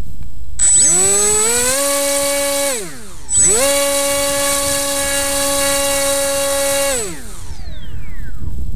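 FPV quadcopter's brushless motors spinning up with a rising whine and holding a steady pitch, dropping away briefly, then spinning up again and holding for about three seconds before winding down, while the drone stays on the grass.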